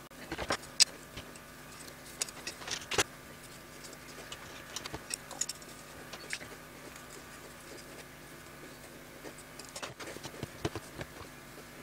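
Scattered light clicks and taps of small drone parts and a carbon-fibre quadcopter frame being picked up, moved and set down on a cutting mat, over a faint steady room hum.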